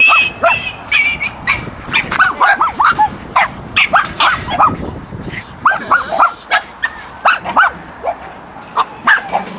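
Dog barking in quick, high-pitched yaps over and over, in irregular runs of several barks a second.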